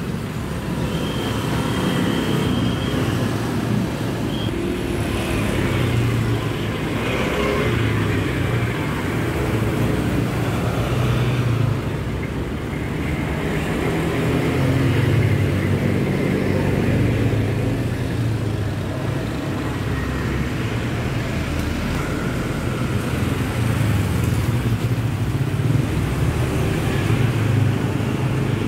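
Steady road traffic, mostly motorbikes passing along the street, with engines rising and fading as they go by.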